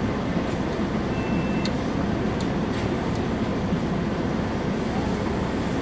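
Steady low hum inside a car's cabin: the engine idling with the air conditioning blowing, with a few faint small clicks in the middle.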